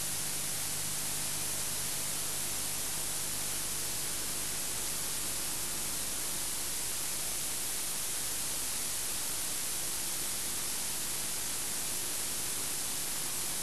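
Steady hiss of recording noise with a faint low hum underneath. No other sound stands out.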